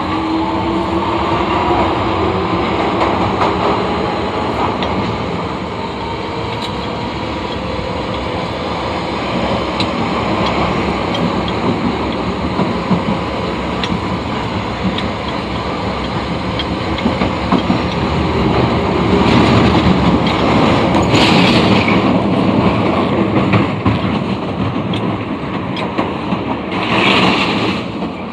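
Osaka Metro Tanimachi Line 22-series subway car 22618 running on the rails, with a shrill running sound. In the first couple of seconds its motor whine rises in pitch as it picks up speed, over a steady rumble and wheel clatter. A short burst of higher-pitched noise comes about three-quarters of the way through, and another near the end.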